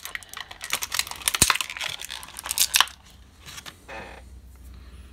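Thin clear plastic blister tray crackling and crinkling as a small model part is pried out of it: a quick run of crackles for about three seconds, then only faint handling.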